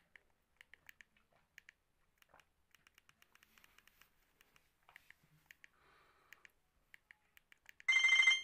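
Faint clicks of an itel Value 100 feature phone's keypad buttons as its menus are scrolled, then near the end the phone starts playing one of its built-in ringtones through its speaker: a loud electronic tune.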